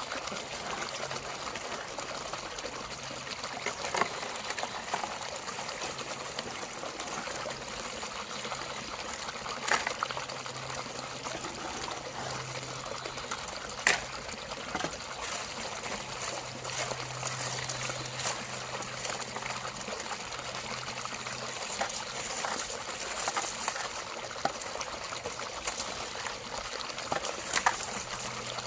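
Shallow water trickling and running steadily, with a few sharp clicks scattered through.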